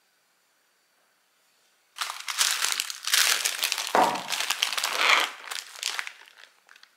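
Plastic bag of a frozen tsukemen noodle pack crinkling as it is handled, starting about two seconds in and fading out near the end.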